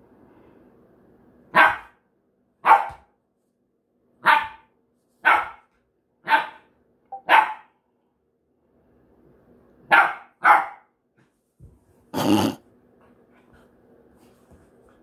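Puppy play-barking at a cat: about eight short, sharp barks, singly and in pairs roughly a second apart, then one longer bark near the end.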